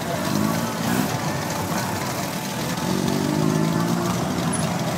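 Engines of classic vehicles driving off at low speed, a Triumph roadster and then an early-1970s Ford pickup truck. The engine pitch rises briefly twice, about half a second in and again about three seconds in.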